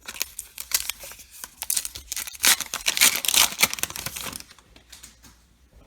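A baseball card pack wrapper being torn open and crinkled, a dense crackling that is loudest in the middle and fades off near the end.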